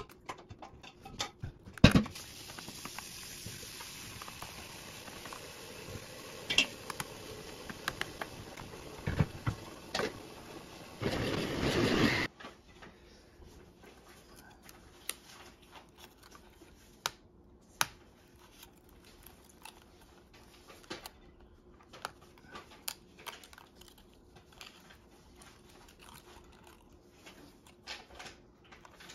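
Small clicks, taps and plastic rustles from hands handling the opened laptop's keyboard, film sheet and palm-rest parts. A sharp click about two seconds in is the loudest sound. It is followed by a steady hiss that cuts off suddenly around the middle, and after that only scattered light clicks are heard.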